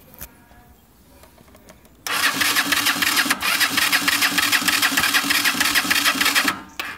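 Motorcycle engine cranking on its electric starter for about four and a half seconds without catching, stopping abruptly, then a brief second crank near the end: the bike won't start.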